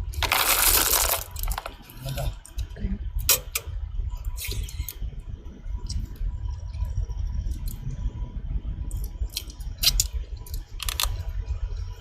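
A rushing noise for about the first second, then scattered sharp clicks and clinks of small hard objects over a steady low rumble.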